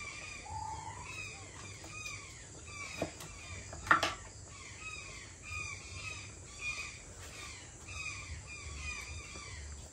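A dusk chorus of birds calling, many short chirps repeating and overlapping as the birds settle to roost at nightfall. A single sharp click about four seconds in is the loudest sound.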